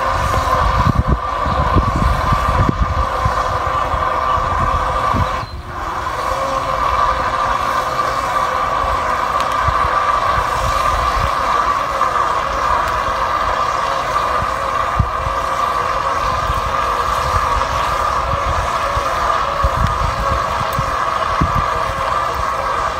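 Remote-control fishing boat's motor running with a steady whine, with wind buffeting the microphone in low gusts. The sound dips briefly about five seconds in.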